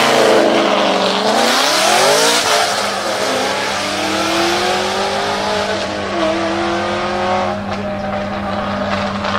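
Aston Martin Vantage AMR Pro accelerating hard: the engine note climbs in pitch, drops back at two upshifts about three and six seconds in, then settles and fades.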